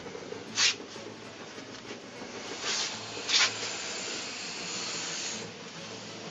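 Reticulated python hissing: short sharp hisses a little before a second in and twice around three seconds, then a longer, softer hiss.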